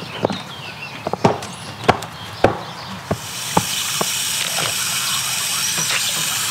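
Garden hose watering wand spraying water into the top of a vertical planter, a steady hiss that starts about three seconds in. Before it, a few sharp clicks and knocks.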